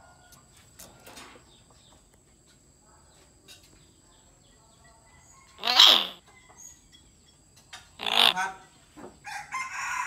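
Hill myna giving two short, loud calls that bend in pitch, about six and eight seconds in, with fainter sounds before them and another call starting near the end.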